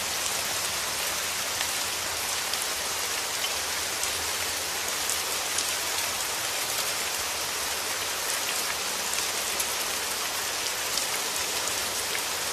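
Steady rain falling: an even hiss with scattered sharper drop ticks.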